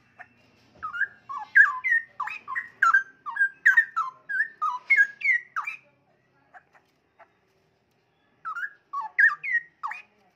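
Young straw-headed bulbul (cucak rowo) singing: a quick run of whistled notes sliding up and down for about five seconds, then after a pause a shorter phrase near the end.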